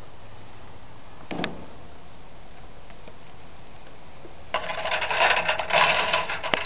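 Handling noise from the recording camera: a brief rustle about a second and a half in, then dense, irregular rustling and scraping close to the microphone from about four and a half seconds, over a faint steady hiss. A sharp click comes just before the end.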